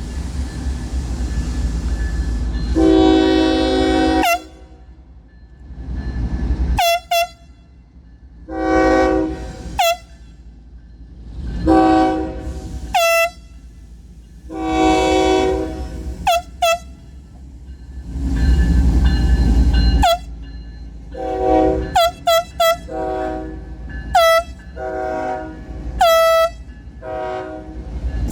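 A handheld compressed-air horn and a Union Pacific freight locomotive's multi-chime horn trading blasts back and forth. The air horn gives short blasts that each drop in pitch as they cut off, and the locomotive answers with longer chords, over the low rumble of the passing diesel train.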